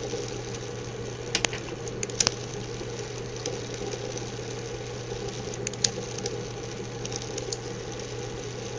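Small fischertechnik electric motor running steadily at half speed on pulse-width modulation through a transistor, a steady hum. A few faint clicks sound over it.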